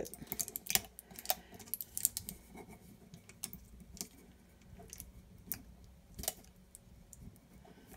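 Light, irregular clicks and crinkles of sublimation paper and heat tape being pressed and smoothed by hand around a ceramic mug, busiest in the first few seconds and sparser after.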